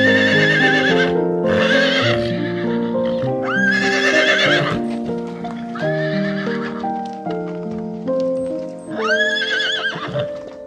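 Horses neighing: about five whinnies, each about a second long with a shaking, wavering pitch, over steady background music.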